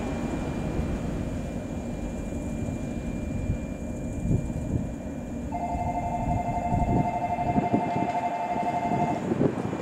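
115 series electric multiple unit pulling slowly into a station platform: a low rumble with irregular wheel thumps. About halfway through, a steady two-note tone sounds for nearly four seconds.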